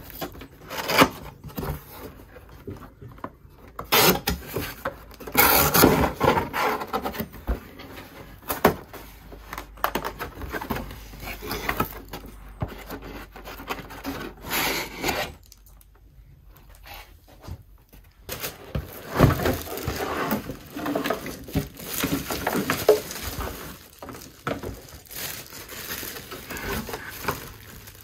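A cardboard box being opened and unpacked by hand: irregular scraping and rubbing of cardboard flaps and a moulded pulp packing insert. There is a quieter pause about two thirds of the way in.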